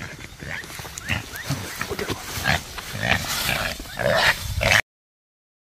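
Wild pigs grunting and squealing in the undergrowth, a quick run of short rough calls, some rising in pitch, that grow louder and then cut off suddenly near the end.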